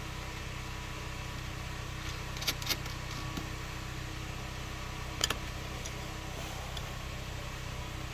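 A steady low hum with a few sharp metallic clicks, a pair about two and a half seconds in and another just past five seconds: a wrench working a battery terminal bolt.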